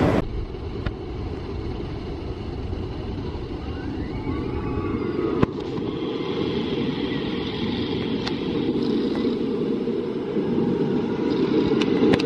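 Distant rumble of the Lightning Racer's trains running through the wooden GCI coaster structure, a steady low roar that grows slowly louder, with a few faint ticks.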